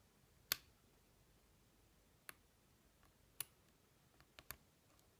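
Lock pick and tension tool working the pins of a Yale six-pin euro cylinder during single-pin picking: a few sharp, separate metallic clicks, the loudest about half a second in and a quick cluster of three near the end.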